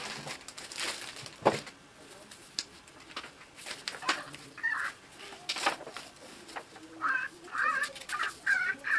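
Burtle Hatchimal toy inside its egg making short electronic bird-like chirps, one near the middle and a run of several toward the end, with scattered sharp knocks over the first few seconds.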